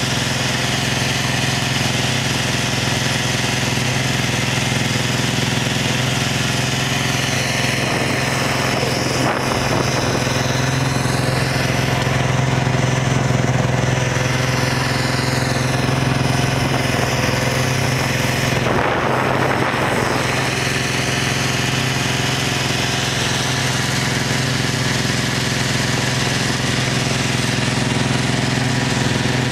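Snowmobile engine running at a steady cruising speed, a continuous drone. Two brief rushes of rough noise come over it, about a third of the way in and again about two-thirds in.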